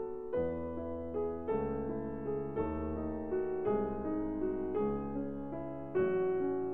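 Background music: solo piano playing slow classical music, with a new chord over a deep bass note about once a second.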